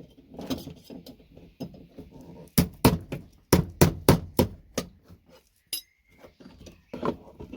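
A scrap VGA connector being struck to knock out its gold-plated pins: light clattering as it is handled, then a run of about ten sharp knocks in quick succession a few seconds in, and a few more near the end.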